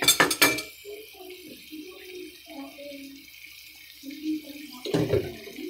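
Ampalaya and pork stir-fry sizzling in a pan with a steady hiss, while a spatula clatters against the pan a few times at the start and knocks once more, louder, near the end as it is stirred.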